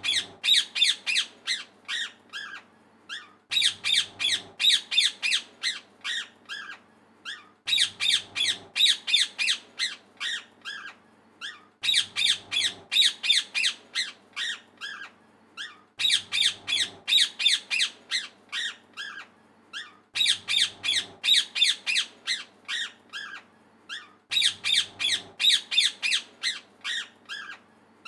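Parrot chirping: a quick run of sharp, high chirps, loudest at the start and fading away over about three seconds, repeated about every four seconds.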